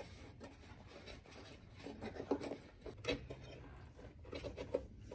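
Faint handling noise: light rubbing and a few small taps and clicks as a hand moves over a cut steel body panel, close to the phone.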